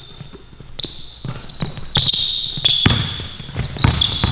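A basketball dribbling on a court, several bounces with the loudest near the end, mixed with high sneaker squeaks on the floor as players move.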